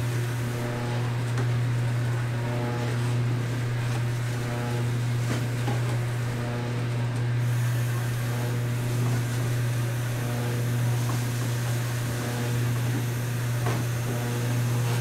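A steady low machine hum, with soft wet squishing as the blood, glass-noodle and vegetable filling for blood sausage is kneaded by rubber-gloved hands in a steel tub.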